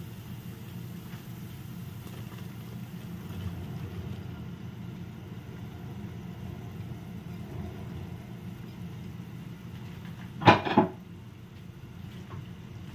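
Steady low rumble of a pot of soup boiling on the stove. About ten and a half seconds in come two sharp knocks close together, the loudest sound, as a wooden spatula strikes the pot of shredded cabbage and carrots.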